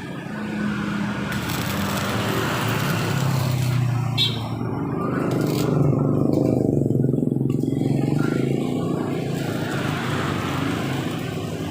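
A motor vehicle's engine running close by, its low hum swelling in the middle and easing off toward the end, with road noise.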